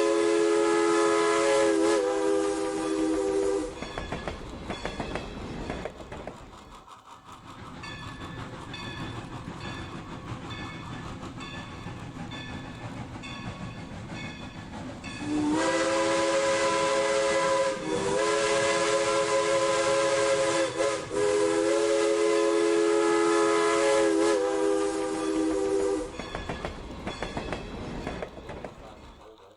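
Dubbed sound effect of a steam locomotive's chime whistle, blowing a chord of several notes at once. The whistle sounds for a few seconds, gives way to a quieter running sound with faint regular clicks, then blows again for about ten seconds with two brief breaks before the train sound fades out.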